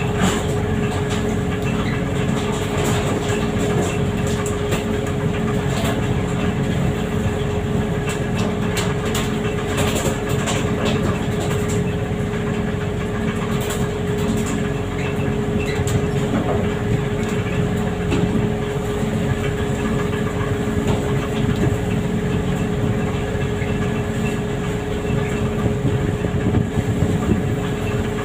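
A skipjack pole-and-line fishing vessel's engine drones steadily with a constant hum, over the rush of sea water along the hull.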